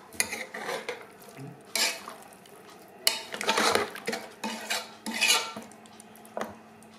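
Metal spoon stirring mutton pieces in a thick spice and oil masala inside an aluminium pressure cooker: irregular scraping strokes and clinks against the pot's side, ending with one short clink near the end.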